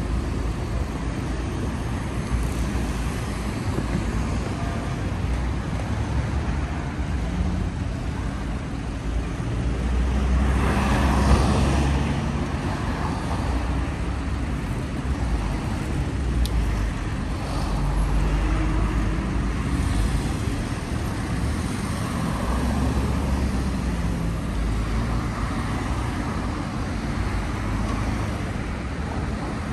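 Road traffic noise on a city street: a steady low rumble of vehicles, swelling louder about ten seconds in.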